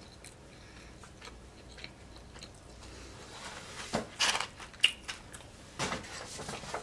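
Close-miked chewing of a fried chicken pakora. About four seconds in comes crisp crackling as fingers pick through the pile of fried samosas and pakoras, and there are a few sharp clicks and another crunchy patch near the end.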